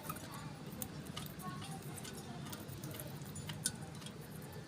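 Budgies in a quiet lull: faint, scattered light clicks and ticks, with one sharper click about three and a half seconds in.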